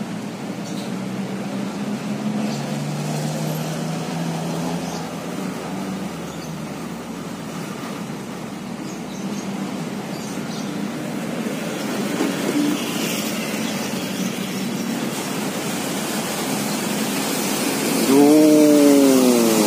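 Steady hiss of city traffic and flowing river water, with a low engine hum through the first half. About 18 seconds in, a loud siren wail starts, falling in pitch: the warning as the dam's floodgate is opened.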